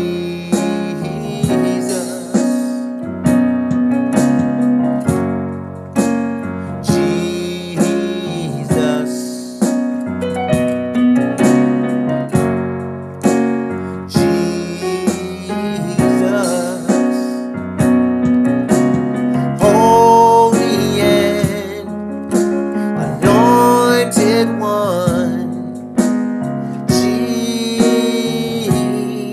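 Piano accompaniment to a slow worship song, chords struck about once a second and left to ring, with a singing voice holding a few wavering notes in places.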